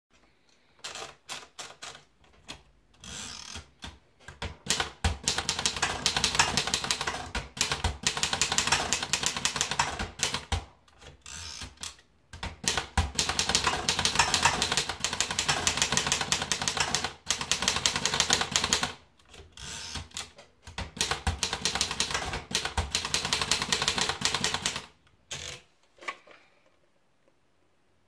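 Erika Model S portable typewriter: a few scattered clicks as paper is fed in and wound onto the platen, then three long runs of rapid keystrokes, with the carriage returned in the short breaks between lines.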